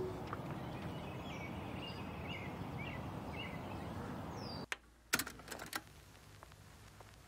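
Faint background hiss with small bird-like chirps, cutting off abruptly about four and a half seconds in. A few sharp clicks follow, then near silence.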